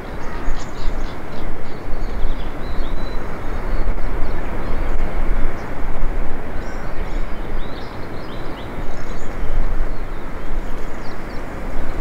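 Strong gusting wind buffeting a parabolic microphone, loudest throughout, with faint short high calls of a crested kingfisher, an unusual call for this bird, coming in clusters about a second in, around three seconds, around seven seconds and again near nine seconds.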